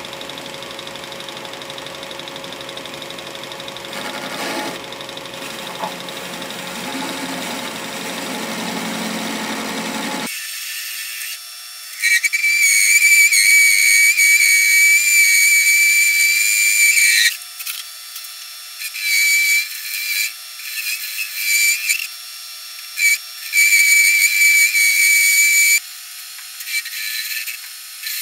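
Atlas 618 metal lathe running steadily. Partway through, a loud high-pitched whistling squeal starts as the tool cuts the cast iron back plate, then comes and goes in bursts of a second to several seconds as the cut is fed in and backed off.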